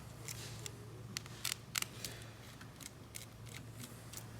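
Light clicks and ticks from a small flathead screwdriver and wires being worked at a green screw terminal block, with two sharper clicks close together near the middle, over a steady low hum.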